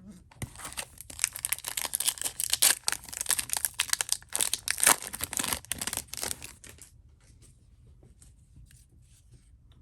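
A foil trading-card pack wrapper being torn open and crackled for about seven seconds, then a few soft clicks as the cards are handled.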